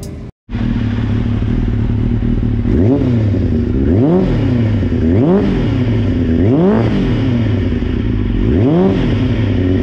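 1996 Suzuki GSX-R750 SRAD's inline-four engine idling loudly through twin Devil carbon-fibre exhausts. From about three seconds in, the throttle is blipped five times, the pitch rising and falling back to idle each time.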